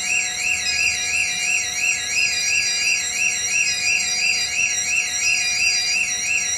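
Electronic fire alarm sounder warbling steadily, its pitch swinging up and down about four times a second, with a second short tone repeating about every second and a half. It is sounding during the countdown before the panel sends 24 volts to release the two extinguishing-agent cylinders.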